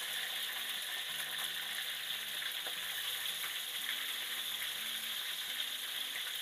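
Pandan-wrapped chicken wings deep-frying in hot oil in a wok, a steady sizzle, with light clicks of metal tongs turning them against the pan.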